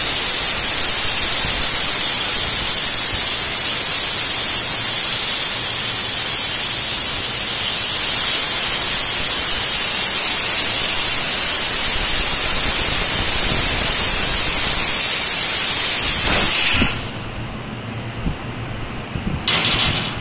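1000 W fiber laser cutter slicing 1.6 mm stainless steel sheet: a loud, steady hiss of assist gas jetting from the cutting head through the cut. It cuts off abruptly about seventeen seconds in, and a second brief hiss comes near the end.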